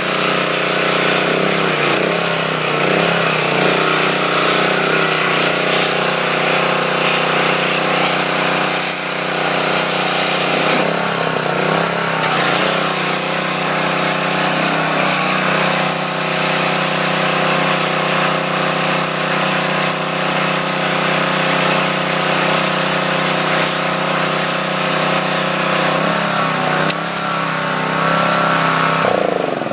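Pressure washer running steadily, its water jet spraying a redfish against the grain of its scales to flake them off.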